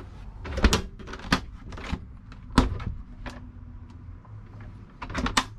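An RV refrigerator's freezer door being opened and handled: a series of sharp clicks and knocks, the loudest about two and a half seconds in and a quick cluster near the end.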